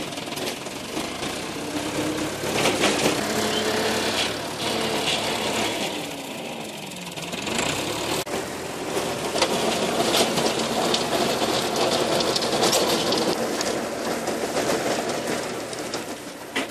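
Massey Ferguson 275 tractor's four-cylinder diesel running under load, driving a rear PTO Agrator mulcher through tall grass: a steady, dense mechanical drone. The engine note dips and recovers about six to seven seconds in.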